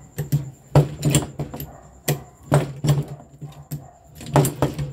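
Long-handled hand rivet tool (lever pop-rivet pliers) worked stroke after stroke to pull a blind rivet into sheet steel: a string of irregular sharp metallic clicks and clacks from the jaws and handles.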